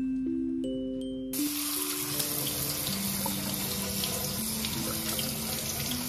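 Kitchen tap running hard onto strawberries in a plastic clamshell over a stainless steel sink, a steady rush of water that starts about a second and a half in.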